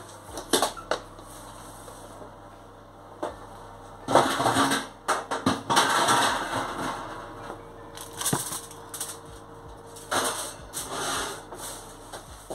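An oven door being opened, then the clatter and scrape of a metal wire oven rack and a foil-covered baking dish being handled and slid into the oven, in several separate bursts.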